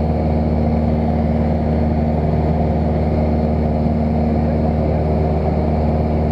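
Light aircraft's piston engine and propeller droning steadily in cruise, heard from inside the cabin, with an even pitch that does not change.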